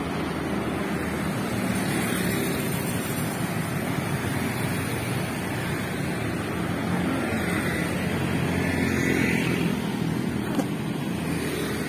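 Road traffic: cars and motorcycles passing on a multi-lane city street, a steady wash of engine and tyre noise that swells as vehicles go by, about two seconds in and again near nine seconds.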